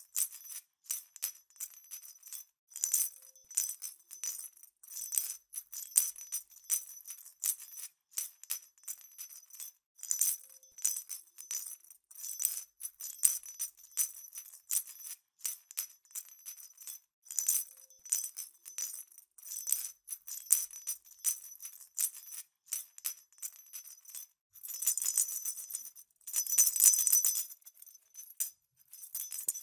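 Small jingle bells shaken in quick, irregular jingles, with a longer, denser stretch of jingling near the end.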